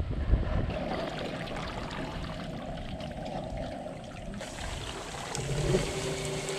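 Water sloshing in a pot of scalding water as a chicken carcass is dunked, then water pouring and dripping off the wet bird as it is lifted out, from a little over four seconds in.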